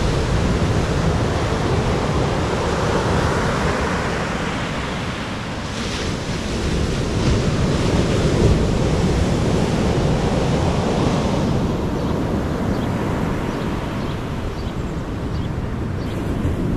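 Ocean surf breaking and washing up a sand beach in a steady rush, with wind rumbling on the microphone.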